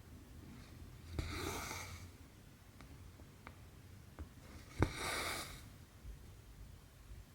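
Hand cross stitching on 11-count stamped fabric: twice, the needle pops through the cloth and the cotton thread is drawn through after it with a short rasping swish. There are a few faint needle ticks in between.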